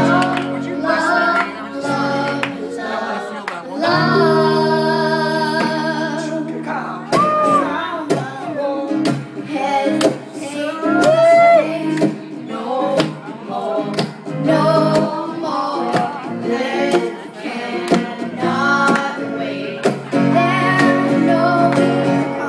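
A young girl and a man singing a song together, accompanied by a strummed acoustic guitar.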